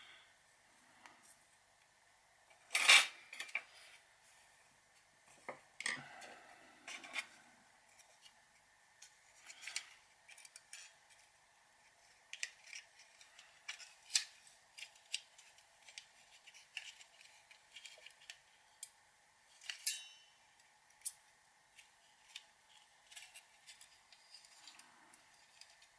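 Irregular small clicks and taps from a remote control's plastic parts being handled and put back together, the loudest about three seconds in.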